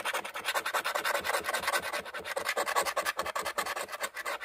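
A coin scratching the coating off a scratch-off lottery ticket in rapid back-and-forth strokes, uncovering the player's numbers.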